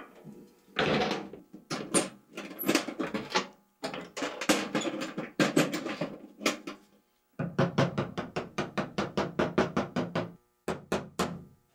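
Music with percussion, ending in a fast run of regular knocks, about seven a second.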